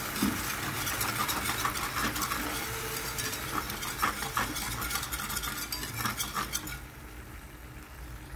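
Wire whisk stirring a yoghurt and egg sauce in a hot frying pan, its wires scraping and ticking rapidly against the pan over a soft sizzle; it gets quieter near the end.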